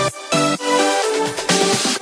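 Electronic dance music with no kick drum, only held synth notes, and a hiss that swells near the end.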